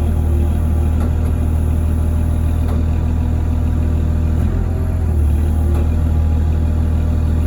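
A large engine running steadily with a deep low rumble.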